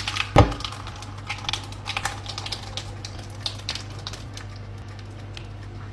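Jollof rice mixture being poured into a baking pan: a single knock about half a second in, then soft scattered clicks and patter over a steady low hum.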